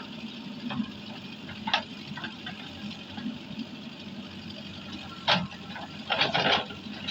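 JCB backhoe loader's diesel engine running steadily, with a few short, sharp clattering noises from the work, the loudest about five seconds in and a quick cluster just after.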